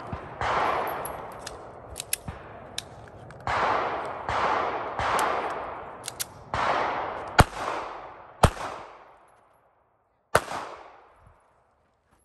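A string of handgun shots fired rapidly in singles and quick pairs, each crack followed by a ringing echo; the firing stops about eight and a half seconds in, with one last shot about ten seconds in.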